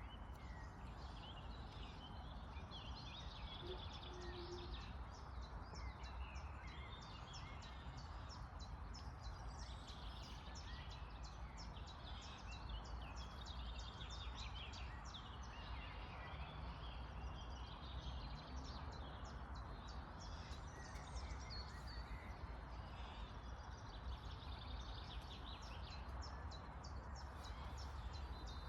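Birds chirping and trilling, many short calls overlapping, over a faint steady background hiss and low rumble.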